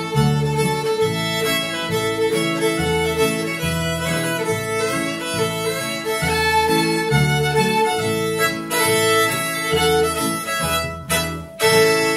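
Instrumental country break by a string trio: the fiddle plays held melody notes over plucked upright double bass and strummed acoustic guitar. About eleven seconds in the music drops out briefly with a few knocks, then comes back in strongly.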